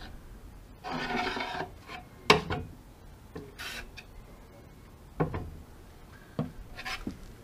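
A metal filling knife scraping and spreading sticky adhesive over a plywood board in short rubbing strokes, with a few sharp knocks, the loudest a little over two seconds in.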